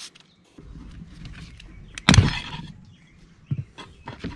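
Scraping and handling noise from working a small tractor tire's bead loose from its rim with clamps, with one loud, sharp bang about two seconds in and a couple of lighter knocks near the end.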